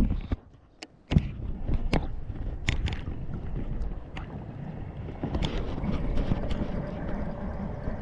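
River water splashing and sloshing around a wading angler's legs. A few sharp clicks come in the first second, then the sloshing runs steadily from just after a second in.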